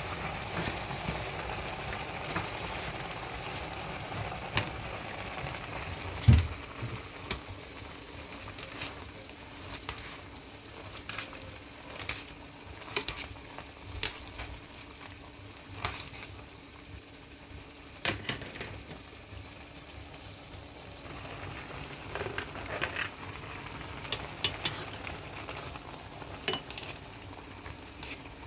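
Ground meat sizzling as it fries in a pan, with scattered knocks and scrapes of a utensil stirring it; one louder knock about six seconds in.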